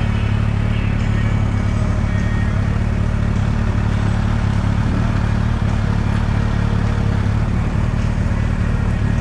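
Motorcycle engine idling steadily, without revving.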